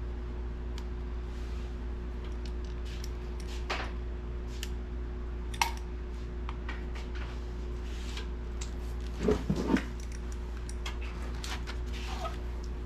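Scattered metallic clicks and clinks of hand tools working on the steel fittings of a sandblaster tank, with a short cluster of louder knocks about nine seconds in, over a steady low hum.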